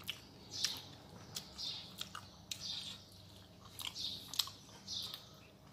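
A person quietly chewing a mouthful of rice with soya chunks roast, curd and potato, with soft wet mouth clicks and smacks about every half second.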